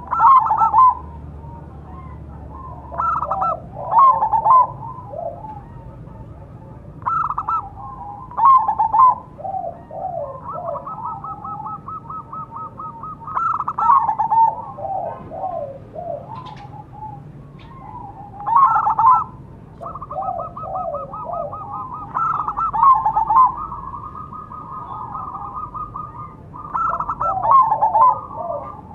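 Zebra doves (perkutut), a crossbred Bangkok bird and a local one, singing their cooing song. About eight phrases of quick rolling coos come every few seconds, several drawn out into a long, even rolling trill.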